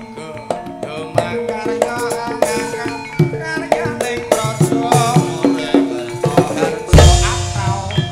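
Javanese gamelan playing tayub dance music: struck bronze metallophone notes in a steady rhythm, driven by kendang hand-drum strokes, with a deep, loud low stroke about seven seconds in.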